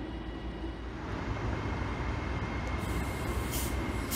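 LNER Azuma Class 801 electric train, two units coupled, running into the platform with a low rumble and a steady high whine, and two short hisses near the end. Before it, about the first second holds a Northern Class 331 electric unit running in.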